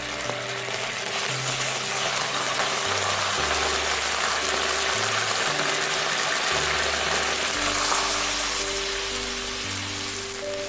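Oyster sauce sizzling steadily in hot oil in a nonstick wok as it is stirred with a spatula, over background music with slow sustained bass notes.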